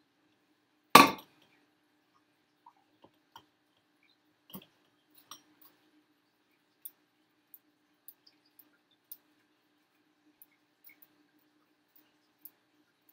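A measuring cup set down on the kitchen counter with one sharp clink about a second in, then faint scattered clicks and scrapes of a spoon working orange pulp in a metal mesh strainer.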